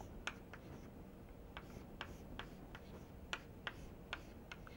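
Chalk writing on a blackboard: a string of faint, irregularly spaced sharp taps and clicks as the chalk strikes and strokes the board.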